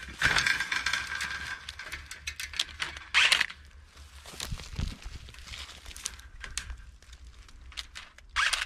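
Grapevine cane scraping and rustling against the trellis wire as it is bent down and tied, with sharp clicks from a handheld vine-tying tool. The loudest scraping bursts come just after the start, about three seconds in, and near the end.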